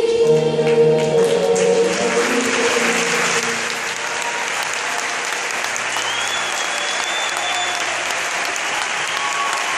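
Children's choir and orchestra holding a final chord that dies away about three seconds in, while audience applause rises and carries on steadily, with a couple of high whistles in it.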